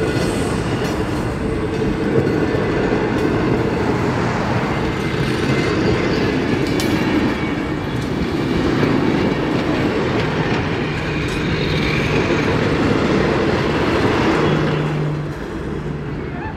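Carriages of a steam-hauled heritage passenger train rolling past, a steady rumble and clatter of wheels on rail that dies away about fifteen seconds in.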